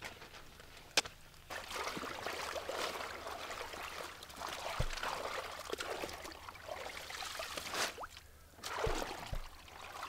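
Seawater trickling and splashing as wet arame seaweed is pulled by hand from a plastic basket standing in shallow water. A single sharp click comes about a second in.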